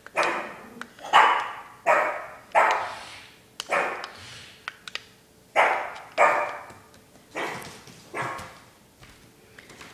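Pug barking repeatedly at a remote-controlled toy skunk: about nine single barks, roughly one a second, with a longer pause near the middle.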